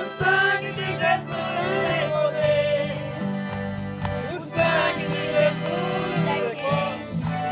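Piano accordion and strummed acoustic guitar accompanying a girl singing a Portuguese gospel song.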